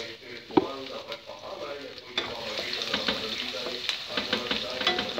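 Chopped garlic frying in oil in a wok, sizzling and crackling as it is stirred with a wooden spatula. A single sharp knock comes about half a second in, and the sizzle grows louder about two seconds in.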